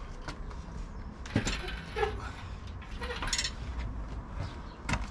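A few short metallic clinks and knocks, as of metal parts and tools being handled, over a low steady hum.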